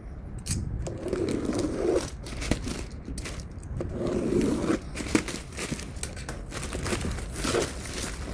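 Packaging being opened by hand: crinkling and tearing, with scattered sharp clicks and scrapes throughout.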